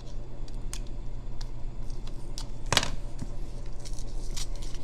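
Snack packaging being worked open by hand: scattered crinkles and clicks of the wrapper, with one sharper crackle a little before the three-second mark.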